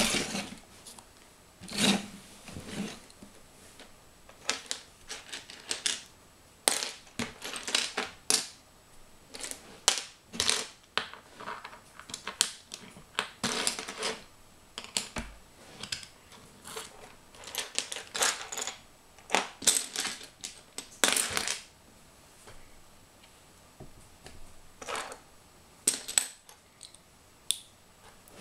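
Loose plastic Lego bricks clicking and clattering as a hand rummages through a pile of pieces and picks them out, in irregular clusters of sharp clicks.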